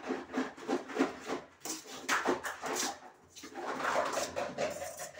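Steel spatula scraping and tossing rice in an aluminium kadai, in quick repeated strokes.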